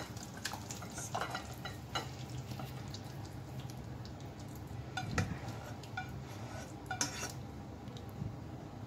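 Black spatula scraping and tapping against a nonstick pan as chicken chilli gravy is scooped out onto a plate, giving a scatter of short scrapes and clinks over a low steady hum.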